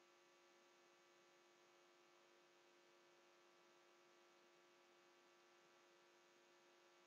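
Near silence: only a faint steady electrical hum and hiss, with no keyboard clicks heard.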